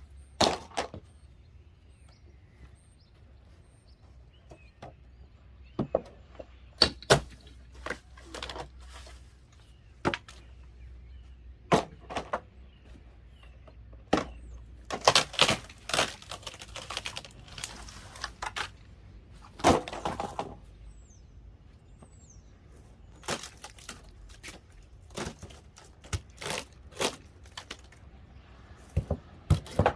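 Hammer work on the old wooden wall boards and framing, prying and pulling nails: irregular sharp knocks and cracks, with a quick cluster of strikes about halfway through.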